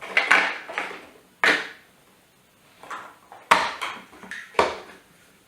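Chunky plastic Mega Bloks First Builders toy building blocks knocking and clattering as they are handled and pressed together: a few sharp knocks, near the start, at about a second and a half, and twice more past the middle.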